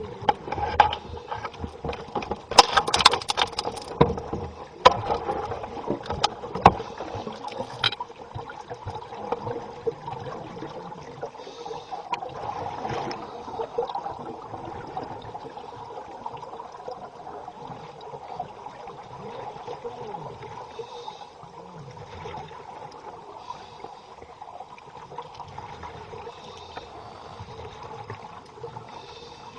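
Underwater ambience from scuba divers: sharp clicks, knocks and bursts of bubbling over the first eight seconds or so, then a steadier murky wash of water with faint bubbling.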